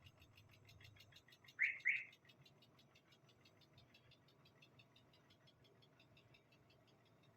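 Renault K4M 1.6 16-valve petrol engine running just after starting, with a faint, fast ticking at about eight or nine a second, which the owner takes for a clacking cam phaser. Two short high chirps come about a second and a half in.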